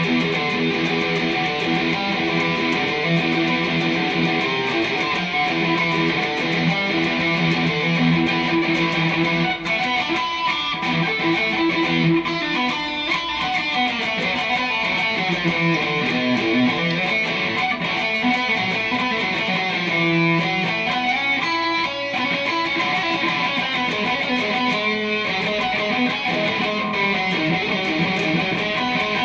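Telecaster electric guitar played through a Marshall amplifier: a continuous riff of ringing notes without a break.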